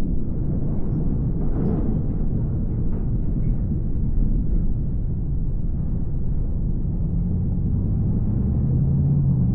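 Car driving on a highway: steady low road and engine rumble, with a faint engine hum coming through near the end.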